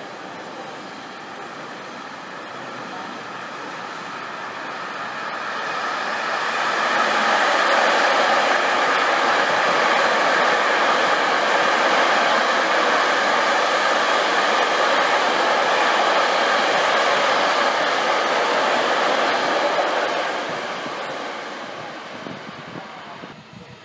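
Freight train of container wagons rolling past, a steady wheel-on-rail rumble and clatter that swells after a few seconds, holds, then fades away near the end.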